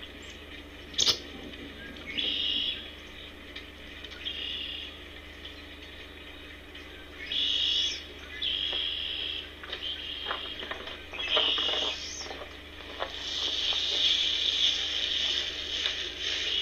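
Wild birds calling in the woods: a run of repeated high, harsh calls about half a second to a second long, merging into a longer stretch near the end. A sharp knock comes about a second in, and there are a few light clatters of handling around ten to twelve seconds.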